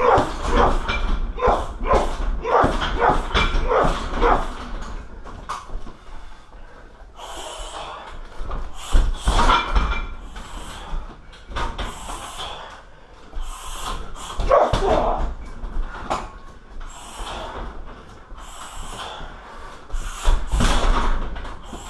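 Kicks and punches landing on a 60 kg heavy bag. There is a quick run of thuds, about two a second, over the first few seconds, then spaced single hits.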